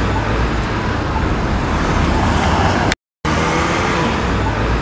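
Road traffic noise: a steady rumble of passing cars. It cuts out briefly about three seconds in, then starts again.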